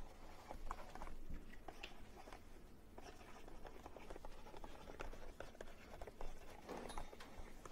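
Quiet room tone with faint, scattered ticks and scratches of a stylus writing on a tablet screen.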